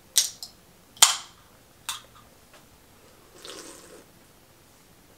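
A Zevia soda can being opened: metallic clicks of the ring-pull, a sharp crack with a short fizzing hiss about a second in, and another click. Near the middle comes a faint, brief sipping sound as she drinks from the can.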